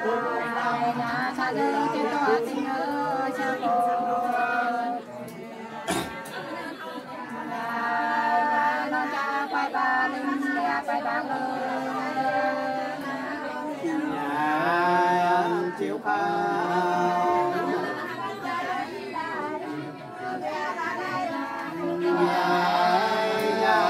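Nùng sli folk song sung unaccompanied by a pair of women's voices together, long held notes with slow bends in pitch. A single sharp click about six seconds in.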